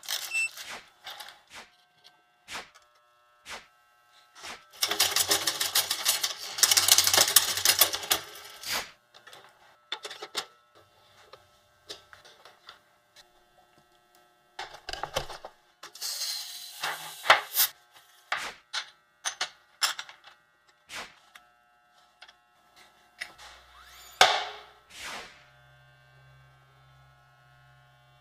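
Mountain-bike workshop sounds: scattered clicks and taps of hand tools on bike parts, a few seconds of rapid clicking and rattling about five seconds in, a short high hiss about sixteen seconds in, and a swoosh near the end.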